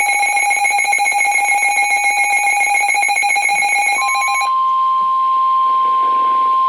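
Emergency alert tones. A harsh, buzzing alarm tone with a fast flutter gives way, about four seconds in, to a single steady high tone: the weather-radio warning alarm tone that comes before a broadcast warning.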